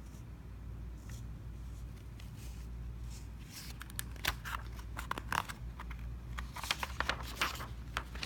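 Paper pages of a picture book rustling and clicking as they are handled and turned, in short scattered bursts from about halfway through, over a steady low hum.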